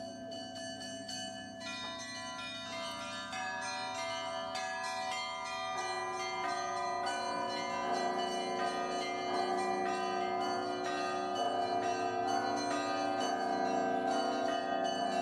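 Bells ringing a fast peal of many struck notes that overlap and ring on, growing fuller and louder about six seconds in.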